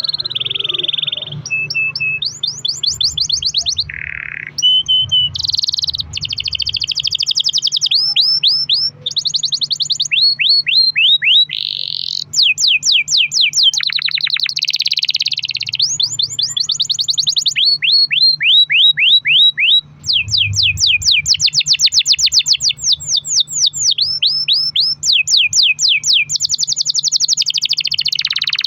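Domestic canary singing a long, unbroken song: a chain of fast trills of rapidly repeated notes and runs of quick rising sweeps, one trill running straight into the next.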